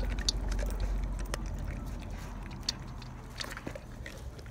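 Rottweiler eating a mix of dry kibble, beans and canned meat from a metal bowl: irregular crunching and clicking of chewing and biting, over a low steady rumble.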